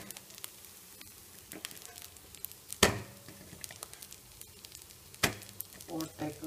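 Rice-batter appam sizzling and crackling faintly in a hot steel pan on a gas burner. Two sharp knocks stand out, about three and five seconds in, with a few smaller knocks near the end.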